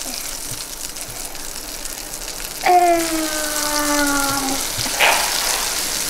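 Baking soda and vinegar fizzing over ice, a steady crackling hiss. About three seconds in, a voice holds one long, slowly falling note for about two seconds.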